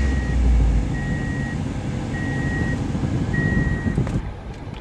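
Toyota Corolla engine running just after starting, on a freshly fitted oversize rod bearing meant to cure a rod knock. Over it a car warning chime beeps about once a second, stopping about four seconds in.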